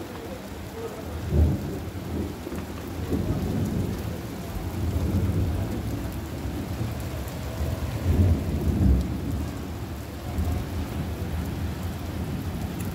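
Thunder rumbling in long low rolls over steady rain, swelling loudest about a second and a half in and again around eight to nine seconds in.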